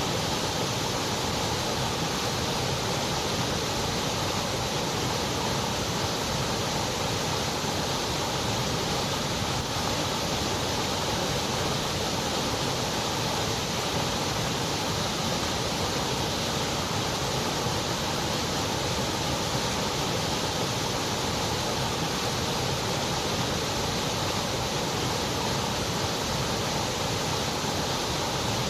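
Continuous white noise: an even, unchanging hiss with no rises, breaks or other sounds.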